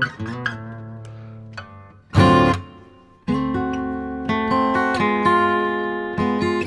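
Background music played on acoustic guitar: plucked notes die away, a single loud strum comes about two seconds in, and ringing chords follow from about three seconds in.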